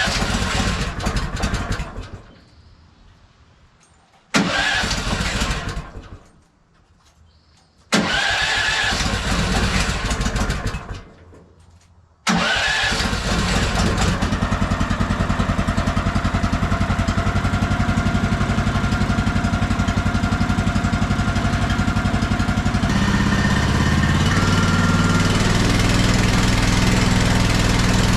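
Choked cold start of the Woodland Mills HM 130 MAX sawmill's gas engine after about three months unused: it fires briefly and dies three times, then catches about twelve seconds in and keeps running steadily, its note shifting slightly near the end.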